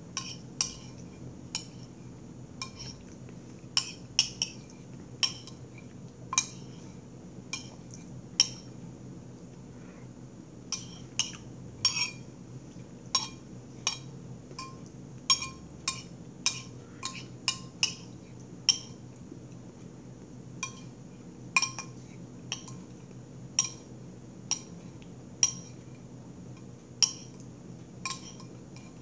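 Metal spoon clinking and scraping against a plate while scooping up baked beans: short, sharp clinks at irregular intervals, often one or two a second.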